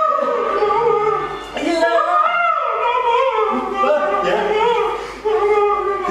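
A voice drawn out in long, wavering pitched notes, in a slow, mournful line.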